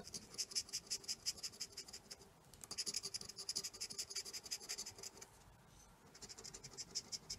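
A plastic scratcher disc scraping the coating off a lottery scratch ticket in quick, rapid strokes. It stops briefly twice, about two seconds in and again around five seconds in.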